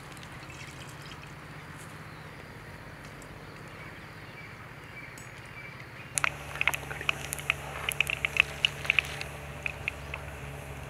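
Cumin seeds sizzling and spluttering in hot oil in an aluminium pan over a wood fire: after a steady low background, a dense run of sharp crackles and pops starts about six seconds in and keeps going.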